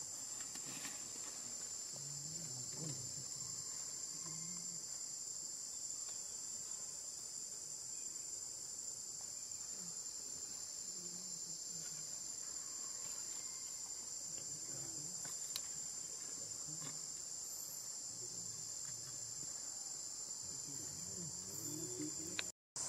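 A steady, high-pitched insect chorus that drones without a break.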